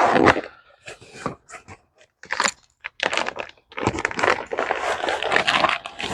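Packaging rustling, crinkling and tearing in irregular bursts with sharp clicks, as brake rotors are unwrapped from their box.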